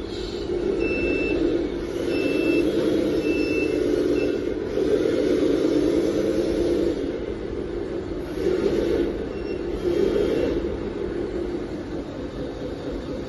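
Remote-control toy truck running: a steady, wavering buzz that swells and eases, with a few short high beeps.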